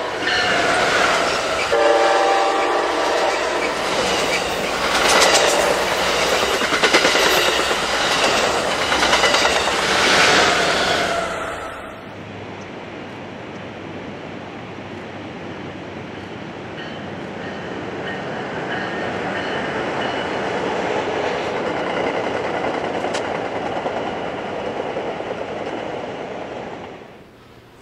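Siemens SC-44 Charger diesel-electric locomotive and its passenger cars passing at speed: a short horn blast about two seconds in, then engine and wheel noise with rapid clicking over the rails as the cars go by. After a sudden change about twelve seconds in, a train running at a distance, a steady rumble that swells and then fades near the end.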